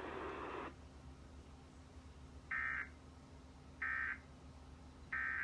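Emergency Alert System end-of-message signal: three short, identical buzzy digital data bursts about 1.3 seconds apart, marking the end of the alert. Under a second in, a steady hiss cuts off suddenly.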